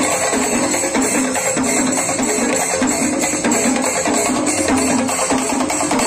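Chenda drum ensemble playing loud, dense percussion music with a steady, driving beat.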